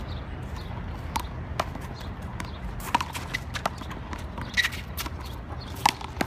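One-wall handball rally: the small rubber ball being slapped by gloved hands and smacking off the concrete wall and court, a series of sharp irregular cracks several per second at times, the loudest about three seconds in and near the end.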